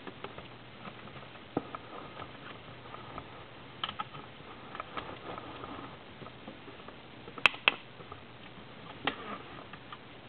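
Tokay gecko crunching a dubia roach: irregular small clicks and crackles, with a sharp pair of clicks about three quarters of the way through.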